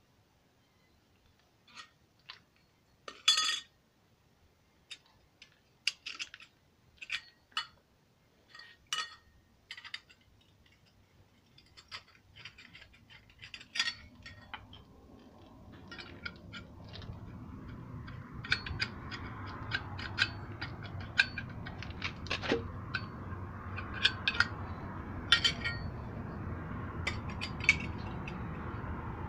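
Metal clinks and clicks of hand tools and bolts being handled at an engine flywheel. They are scattered at first and come more often in the second half, over a steady low rumbling noise that builds up from about halfway through.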